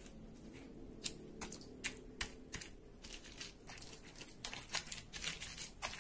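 Round stone pestle grinding chillies and whole shallots on a flat stone grinding slab: irregular clicks and crunches as stone knocks on stone and the shallots are crushed, coming more thickly in the last second and a half.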